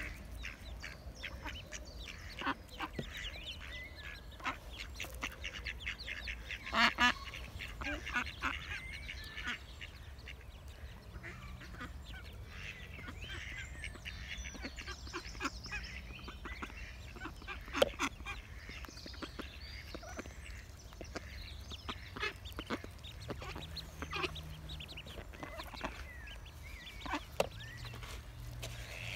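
Mallard hen and ducklings calling while they feed on scattered grain, with many short sharp clicks of bills pecking at the seed. The loudest moments are about seven and eighteen seconds in.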